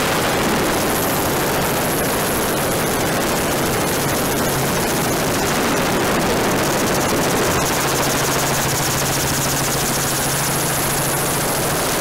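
Helicopter engine and rotor noise heard from aboard the helicopter: a loud, steady rush with a constant low hum and a faint high whine.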